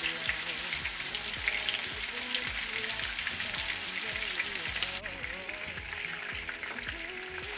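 Chicken thighs sizzling as they brown in hot oil in a frying pan, a steady crackle and spit. The sizzle drops a little about five seconds in.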